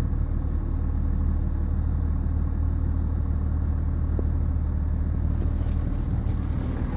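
BMW 335d's 3.0-litre twin-turbo straight-six diesel idling cold with a steady low drone and a knocking noise, which the owner has lived with for 20k miles and takes to be harmless.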